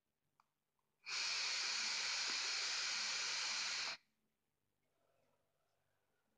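Steady airy hiss of a three-second draw through a Geekvape Ammit 25 single-coil rebuildable tank atomizer, air rushing through its slightly restrictive airflow slots, cutting off sharply at the end of the pull.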